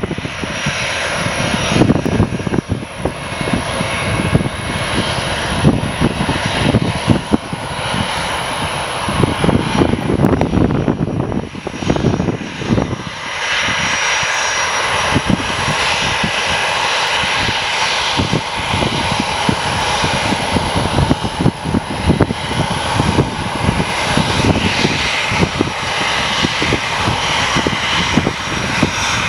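Boeing 737's CFM56 turbofan engines running at taxi power as the jet rolls past: a steady jet hiss with a thin high whine above it.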